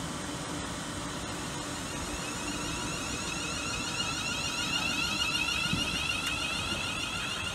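Class 350 Desiro electric multiple unit humming at the platform and starting to pull away, its traction equipment giving a steady electric whine that grows stronger after a couple of seconds.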